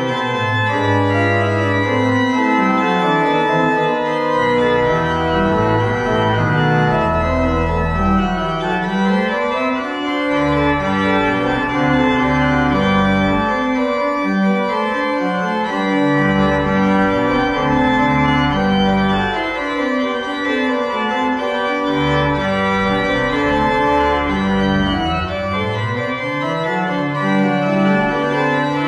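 Church organ playing a slow piece: sustained chords over a bass line that steps from note to note.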